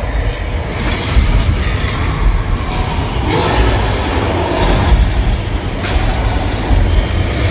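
Studio tour tram rolling along, a loud steady rumble with heavy low end throughout.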